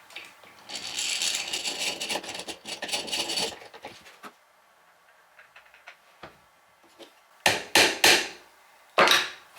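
Wood scraping and rubbing for a few seconds while a small perch is worked on a wooden bird box. Near the end a hammer taps four times, sharp knocks as the perch is tapped into place.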